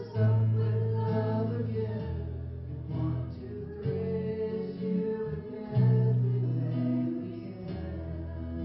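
Music led by acoustic guitar, with held notes over a steady bass line.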